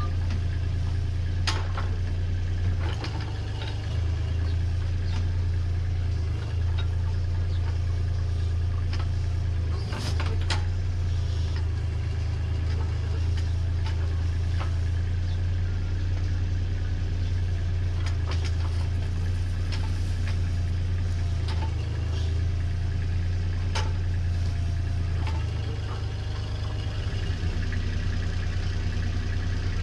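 Terex TC25 mini excavator's diesel engine running steadily at a low pitch, with a few sharp knocks as its grapple sets stone blocks down.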